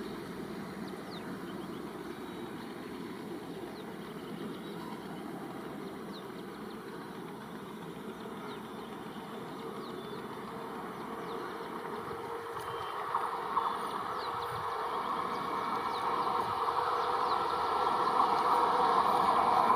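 A train approaching: a steady running noise that grows louder through the second half, with a steady hum coming up near the end.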